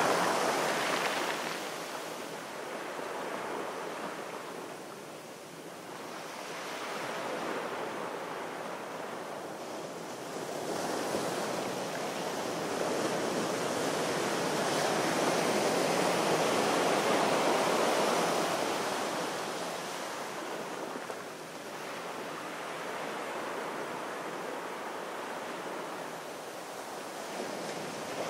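Sea waves washing onto a shore, the rush swelling and falling back every few seconds.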